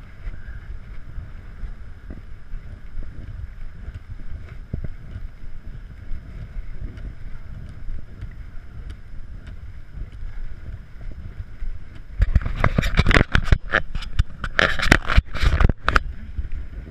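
Steady low rumble of wind on the microphone on a ship's open deck. About twelve seconds in come some four seconds of loud crackling buffets and knocks.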